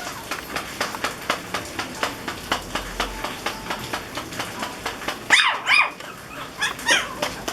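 Pomeranian puppies yipping: a burst of high-pitched yelps a little past five seconds in and another near the end. Before them comes a run of quick, irregular light clicks and taps.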